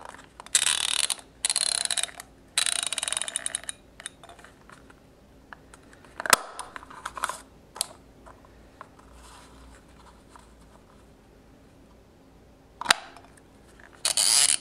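Dial of an Itemizer, a 1950s handheld plastic adding machine, being spun by finger: two rapid runs of clicks in the first four seconds, a sharp single click and a few more clicks around six to eight seconds, a quiet spell, then another click and a further run of clicks near the end.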